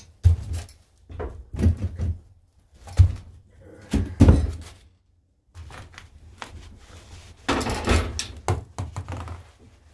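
Irregular heavy thunks and knocks of a Briggs & Stratton engine being lifted and set down into its frame. A short pause comes about halfway, then a longer, busier run of knocking and scraping near the end.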